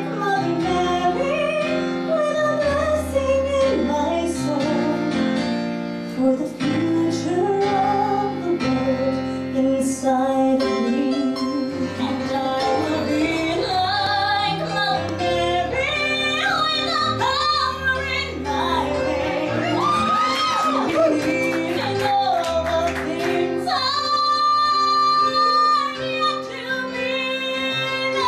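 A woman singing a song with instrumental accompaniment, her voice moving through long notes with vibrato and quick runs, with one long held note near the end.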